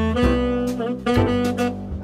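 Background jazz music with a saxophone melody over bass and a steady beat.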